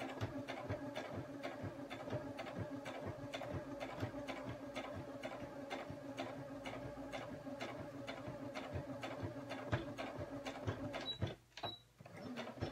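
Domestic sewing machine running steadily through the quilted coaster's layers, with an even patter of needle strokes over a low hum. It stops about eleven seconds in with a couple of small clicks, then starts again near the end to backstitch back and forth.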